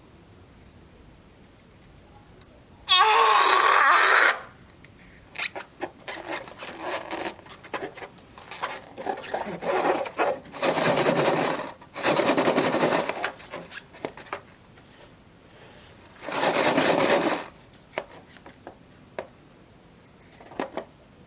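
Air let out of a balloon in hissing bursts of about a second each, four in all, the first opening with a short falling squeal from the stretched neck. Softer rubbing and crackling of handling comes between the bursts.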